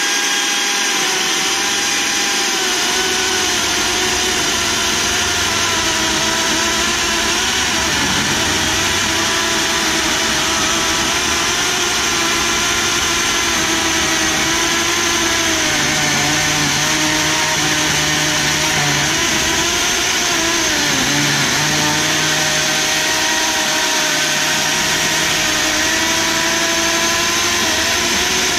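DeWalt Flexvolt 60V electric chainsaw in a Granberg Alaskan chainsaw mill, running steadily while ripping a slab lengthwise through a small log. Its motor pitch dips and recovers several times as the chain loads in the cut.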